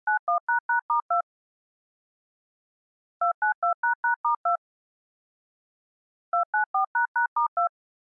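Synthesized DTMF touch-tone siren activation codes, each beep two tones at once: three rapid sequences of seven beeps, each just over a second long and about three seconds apart. These are the remote codes that set off outdoor warning sirens on their alert signal.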